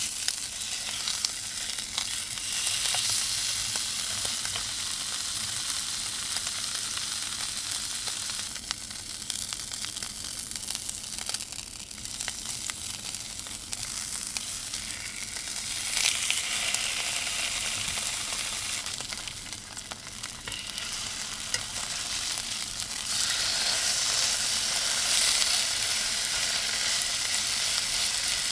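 Food sizzling in a hot pan, a steady hiss with many small crackles that swells and eases a few times.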